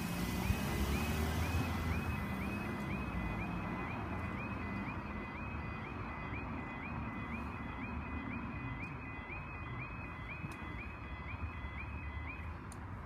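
Railway level crossing warning alarm sounding a rising-and-falling electronic tone about twice a second while the barriers come down. It stops near the end, once the barriers are fully lowered. A car pulls away at the start.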